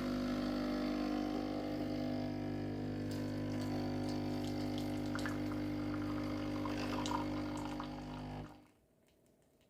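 Tchibo Qbo capsule coffee machine brewing a Caffè Grande: its pump hums steadily while coffee pours into the cup, with light ticks and crackles on top, then stops about a second before the end.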